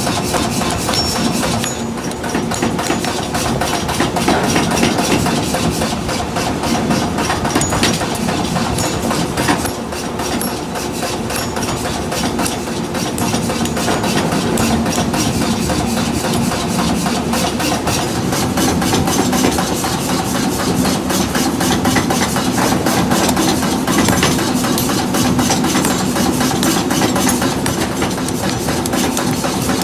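Metalworking machinery running steadily with a steady hum and a fast, continuous metallic rattle.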